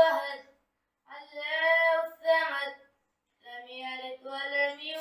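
A boy chanting a Quran surah in melodic recitation, holding long sung notes in phrases with short breaths between them.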